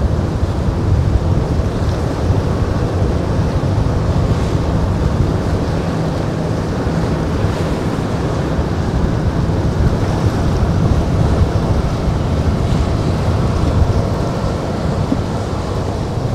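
Loud, steady wind buffeting the microphone over the rush of choppy surf and breaking waves.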